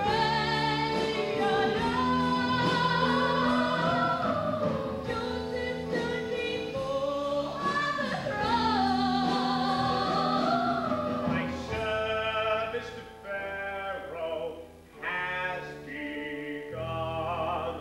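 A woman singing a musical-theatre number live into a handheld microphone over sustained stage-band accompaniment, holding long notes with vibrato. After about twelve seconds the music breaks into shorter, choppier phrases.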